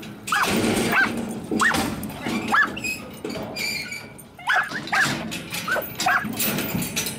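Young Australian Shepherd barking repeatedly in quick, sharp barks while working cattle, with a short pause about halfway.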